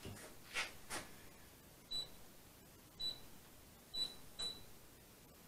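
Touch controls of an electric hob beeping as the heat is set: four short, high beeps about a second apart, after two soft taps near the start.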